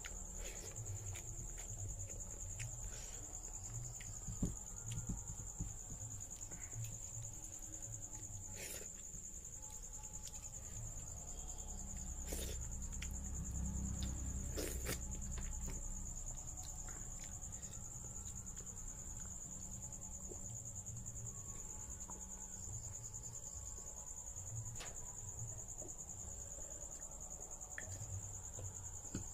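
A steady, high-pitched chirring of crickets, with a few faint clicks and smacks of hand-eating from fingers scraping a plate.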